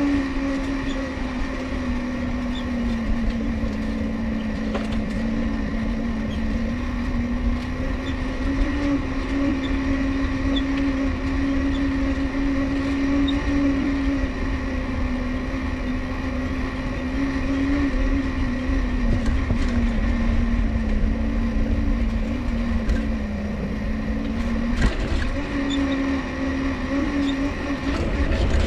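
Dynamo on a Mifa folding bicycle whining as the bike rolls along, a single tone whose pitch rises and falls gently with riding speed. A low rumble runs underneath.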